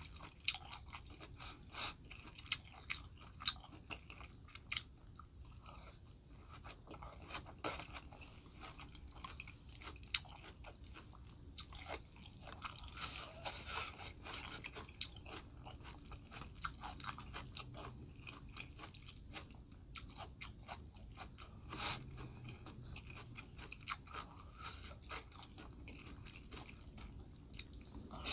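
A person chewing and biting food close to the microphone: cooked tomato and soft noodles from a spicy noodle soup. The chewing is made up of wet mouth clicks and smacks, with a few louder ones scattered through.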